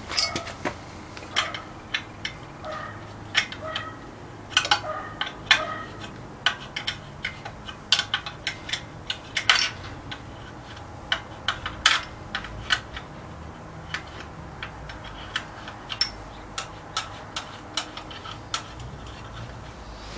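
Irregular metallic clinks and taps of a hand wrench on the fittings of a Willys 4-134 engine as the breather line is worked loose.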